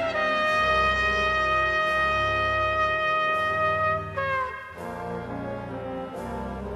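Background music: one long held melody note over steady bass notes for about four seconds, ending in a downward bend, then a softer accompaniment.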